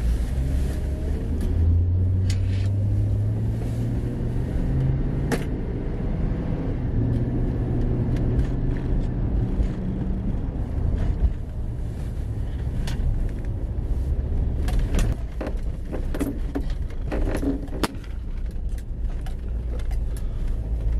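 Chevrolet Tahoe heard from inside the cabin while being driven: steady engine and road rumble, the engine's hum rising in pitch as it pulls away over the first few seconds, then easing off about halfway as it slows. Scattered clicks come through in the second half.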